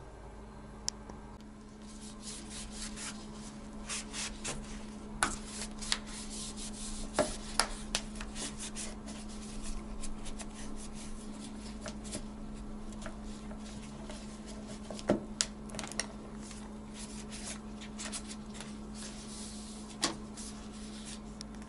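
A damp towel rubbing and wiping over a window sill and frame, starting about two seconds in. Scattered sharp clicks and knocks come through, the loudest about a third and two-thirds of the way through.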